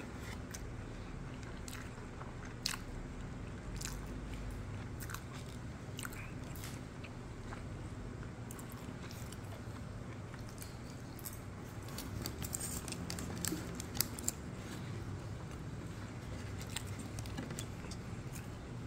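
A person chewing a mouthful of grilled chicken leg with rice, with scattered light clicks and taps and a few sharper ones, over a low steady hum.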